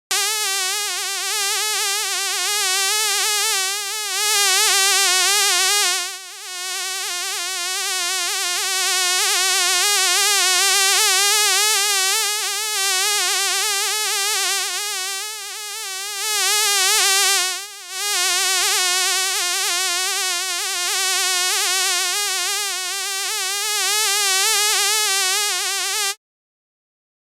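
Housefly buzzing in flight: a continuous high buzz whose pitch wavers up and down, dipping briefly twice. It cuts off suddenly about a second before the end.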